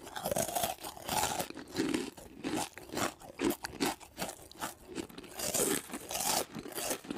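Close-miked crunching and chewing: a dense, irregular run of short crisp crackles with softer chewing sounds among them.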